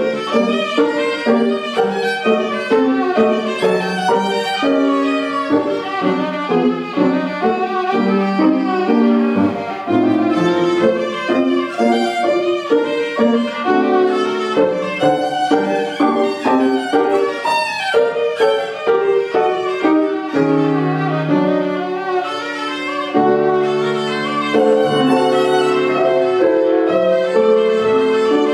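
Violin playing with piano accompaniment: quick running passages that give way to longer held notes about two-thirds of the way through.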